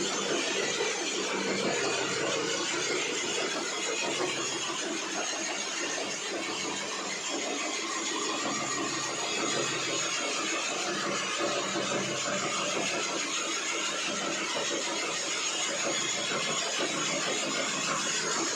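Core cutting machine (core drill) running steadily with an even, unbroken whirring noise and a faint hum underneath.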